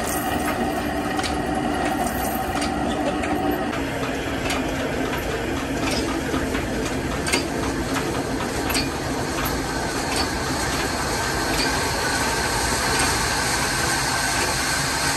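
Industrial band saw mill running, a steady mechanical drone with a whine whose pitch changes about four seconds in, a higher whine joining near the end, and scattered clicks and knocks.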